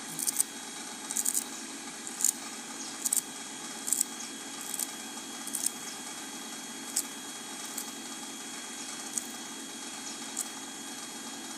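A small knife cutting fresh coriander stems against the thumb, with a short crisp snip about once a second that stops before the end. A steady hum runs underneath.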